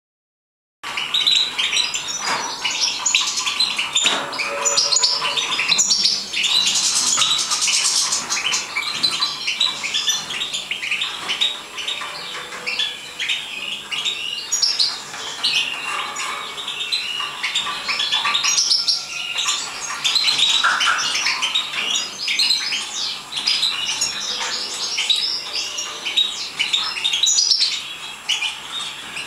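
European goldfinches chirping and twittering, with many quick, high calls overlapping almost without pause.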